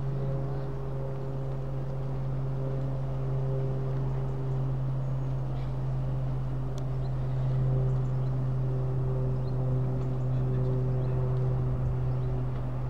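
British Rail Class 43 HST diesel power car approaching slowly, its engine giving a steady low drone with fainter higher hums above it. It grows a little louder about eight seconds in as the train draws closer.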